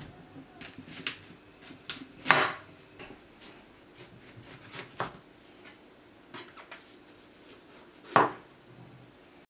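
Kitchen knife cutting the top off a whole pumpkin on a plastic cutting board: irregular knocks and cracks as the blade works through the hard rind. Two louder thumps, about two seconds in and near the end.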